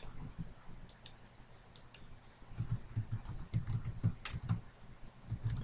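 Typing on a computer keyboard: a few scattered keystrokes, then a quicker, irregular run of key clicks from about halfway through.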